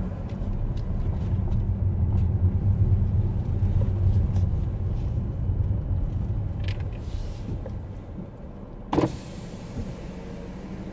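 Car engine and tyre rumble heard from inside the cabin, dying down about eight seconds in as the car slows and stops at a car park barrier. About nine seconds in there is one short sharp thump.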